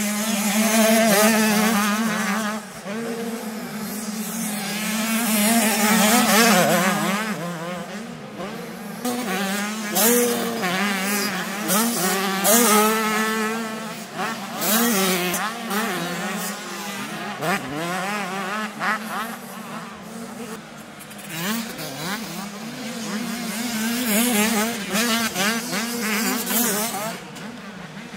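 Several 85cc two-stroke motocross bikes racing past, their engines revving up and down in quick rising glides, loudness swelling and fading as the bikes pass.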